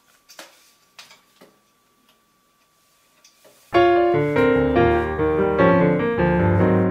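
A few faint knocks, as of a picture frame being handled against a wall, then piano music starts abruptly about halfway through and carries on.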